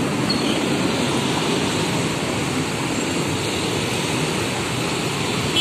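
Steady rushing noise of close-by motorbike traffic as a stream of scooters crosses the level crossing, with no single engine, horn or voice standing out.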